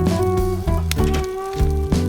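Background music with a bass line, held notes and a steady beat.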